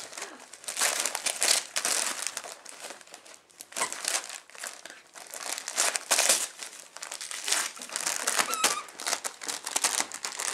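Border collie ripping and crumpling gift wrapping paper with its teeth and paws: irregular bursts of crinkling and tearing paper.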